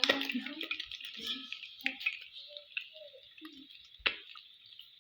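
Tilapia deep-frying in hot oil, a steady sizzle that fades toward the end, with small clicks of a utensil against the pan and one sharp knock about four seconds in.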